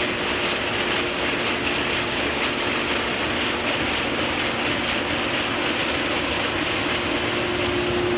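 Machinery running steadily with a dense, rapid clatter and a constant hum.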